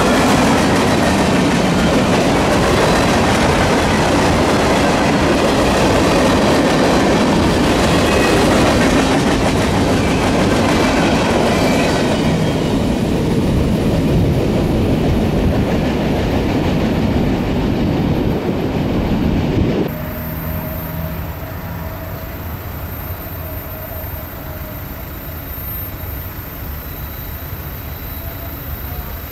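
Freight cars of a long mixed freight train rolling past, wheels clacking over the rail joints in a steady rumble. About two-thirds of the way through the sound cuts off abruptly, leaving a much quieter steady background.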